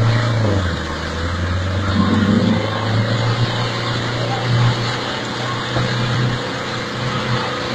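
A vehicle engine running steadily, its revs dropping slightly about half a second in and then holding.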